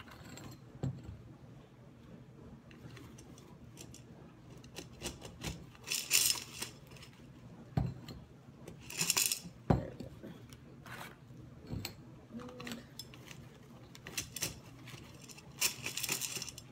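Small white decorative stones rattling and clinking against each other and the glass inside a cylinder vase as the vase is shaken and artificial flower stems are pushed down into them. Three louder bouts of rattling, with scattered clicks between.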